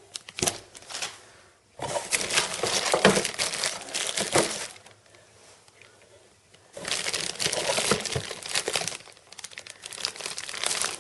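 Plastic packaging crinkling as printer cables are handled and unwrapped, in two long spells of rustling with shorter bits around them.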